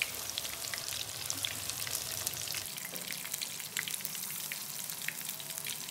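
Batter-coated fish pieces deep-frying in hot oil in a pan: a steady sizzle with many small crackles and pops.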